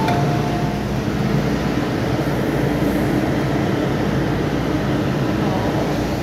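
MTR M-Train electric multiple unit running, heard from on board: a steady rumble of wheels on rails with a low drone from the running gear.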